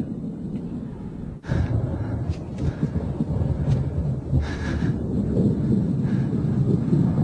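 Low, steady rumbling like distant thunder, growing louder after a brief dip about a second and a half in.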